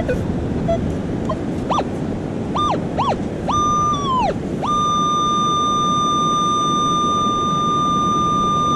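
Minelab Equinox metal detector sounding target tones as its coil passes over a dug hole: a few short beeps, then a longer one that droops away, then one steady tone held about four seconds. The signal marks a target still in the hole.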